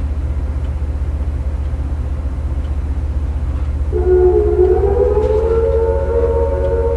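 Base warning siren of the airfield's loudspeaker alert system, starting about four seconds in: several steady tones together that rise a little and then hold, sounding the alarm for an incoming rocket attack. A constant low hum runs underneath.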